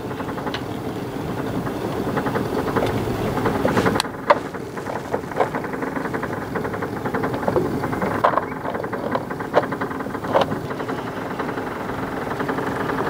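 A small boat's outboard motor idling steadily, with a few sharp clicks in the middle stretch.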